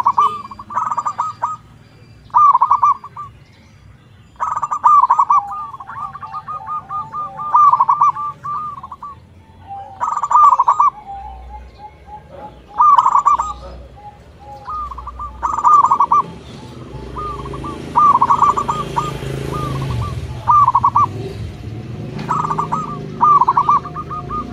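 Zebra doves (perkutut) cooing: short, rhythmic phrases of quick notes, repeated every second or two, with a fainter, lower coo running under some of them.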